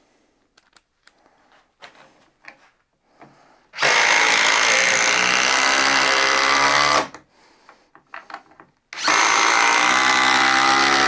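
DeWalt DCF840 20V brushless impact driver driving a long screw into a stacked wood beam. After a few seconds of light clicks as the screw is fitted to the bit, the driver runs for about three seconds and stops. About two seconds later it starts again on the next screw and is still running at the end.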